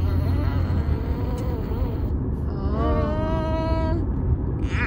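A baby's drawn-out vocal sound, rising and then held for about a second, about three seconds in, over the steady low rumble of a car's cabin.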